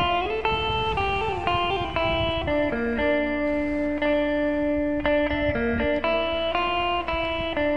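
Instrumental trot music with a guitar carrying the melody over a steady backing.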